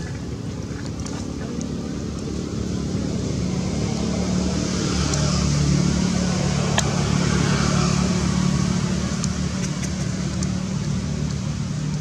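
A motor vehicle's engine hum passing nearby, swelling to its loudest about halfway through and then fading.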